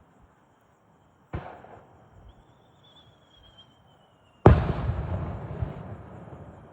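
Aerial fireworks shells bursting: a sharp bang about a second in, a thin high whistle, then a much louder boom with a long rumbling echo that dies away over about two seconds.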